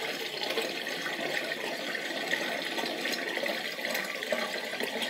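Water draining out of a stainless steel kitchen sink down a newly installed basket strainer: a steady rush of water, part of a leak check on the new drain.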